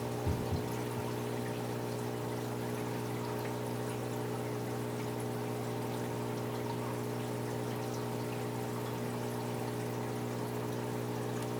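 Aquarium filter running: water trickling and pouring steadily over a low, even electric hum from the pump. A few faint knocks come just after the start.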